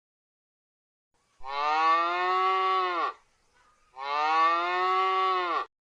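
A cow mooing twice: two long calls with a short pause between them, each dropping in pitch as it ends.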